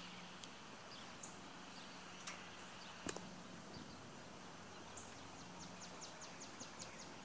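Quiet outdoor ambience with a steady low hum, a few faint clicks, and a quick run of about eight high chirps starting about five seconds in.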